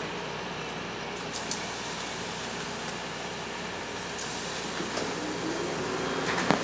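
Light clicks and taps as raw prawns are laid onto the pebbles in a steel pot, a few scattered through, over a steady low hum.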